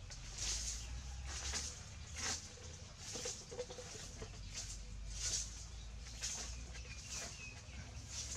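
Birds calling outdoors: short high calls repeating about once a second, with a faint lower call a few seconds in.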